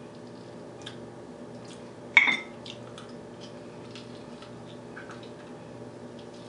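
Close-miked eating sounds: wet mouth clicks and smacks as food is bitten and chewed, with one sharper smack about two seconds in, over a steady low hum.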